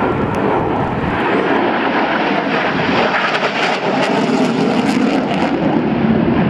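F/A-18 Hornet fighter jet flying a tight maximum-performance turn, its jet engine noise loud and steady.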